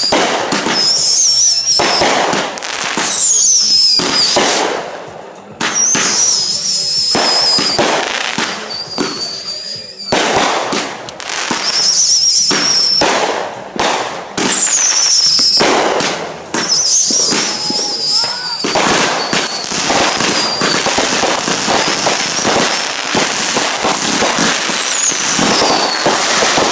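Consumer fireworks firing in quick succession: many sharp bangs and pops, overlaid by high whistles that waver in pitch, several of them falling.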